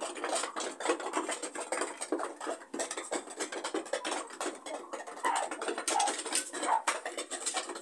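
Chickens pecking and scratching at feed: a dense run of irregular clicks and scratches, with a few short calls near the end.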